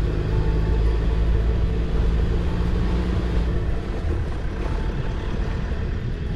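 A 4x4 vehicle driving on a sandy bush track: a steady engine drone with road rumble, easing slightly a little past halfway.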